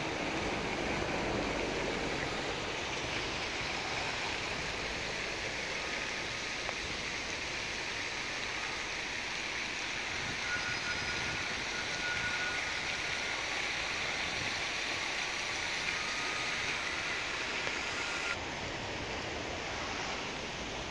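Steady, even rushing noise of outdoor city ambience, the general roar of traffic on the surrounding roads, with no single event standing out.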